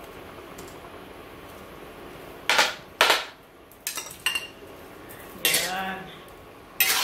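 Cooking pot, lid and metal spoon clanking: about six sharp clanks and scrapes, starting some two and a half seconds in, over a low steady hiss. This is papaya being added to the simmering soup pot.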